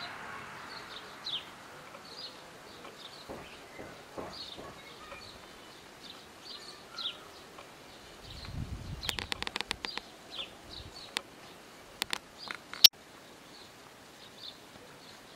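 Small birds chirping in short, repeated high calls. About nine seconds in there is a brief low rumble and then a quick run of sharp clicks, with a few more clicks a few seconds later, the last of them the loudest sound.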